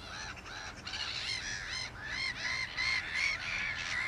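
Birds calling: a rapid run of short, shrill, arched notes, about three to four a second, with more than one bird overlapping.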